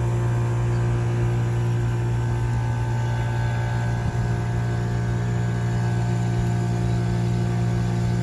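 AAON rooftop makeup-air heat-pump unit running in heating mode, its compressor giving a steady low hum with fainter steady tones above it. The newly replaced reversing valve has shifted over, and the unit sounds a little better.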